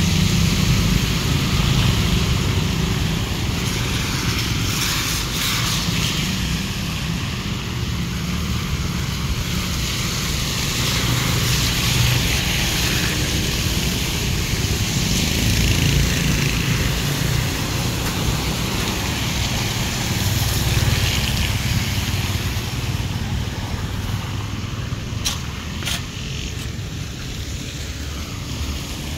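Motor scooters and cars passing along a flooded, rain-wet street, their engines running and tyres swishing through standing water, in a continuous rumble that swells and fades as vehicles go by. There are two sharp clicks near the end.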